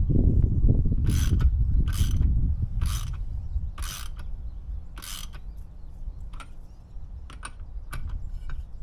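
Socket ratchet tightening the propeller nut on an outboard's lower unit: five short bursts of ratchet clicking about a second apart, one per back-swing, then a few faint single clicks. A low rumble runs under the first two seconds or so.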